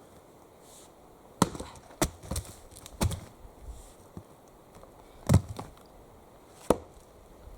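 Axe chopping wood: about five sharp blows at uneven intervals, with a smaller knock between them, the heaviest one about five seconds in.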